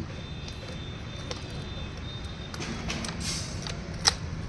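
Work at a broken concrete wall with an electric demolition hammer: a steady low rumble with scattered light clicks and knocks. There is one sharp, loud knock about four seconds in.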